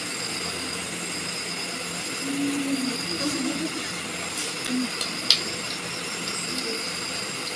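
Steady background hiss with a faint high whine, soft murmuring voices, and one sharp clink of a spoon or cup on crockery a little past halfway.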